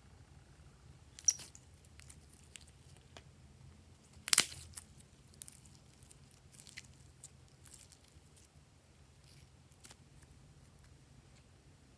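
Small handling noises of objects being worked by hand: scattered soft clicks, taps and crinkles, with a sharp click about a second in and a louder one about four seconds in.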